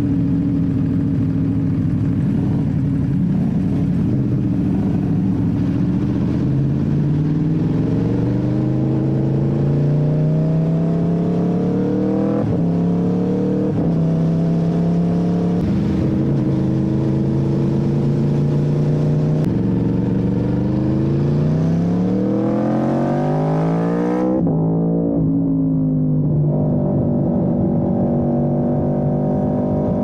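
Ducati Panigale V4S's V4 engine riding at low speed, then pulling up through the gears: the pitch climbs in each gear and drops back at each shift, several times in the second half. Near the end the revs fall away briefly, then settle into a steady run.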